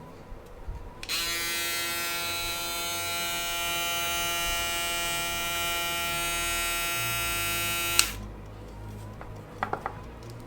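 Stylecraft Rebel electric shaver switched on and running with a steady high-pitched motor buzz for about seven seconds, then switched off, cutting off sharply. A few faint clicks come just before it starts and again near the end.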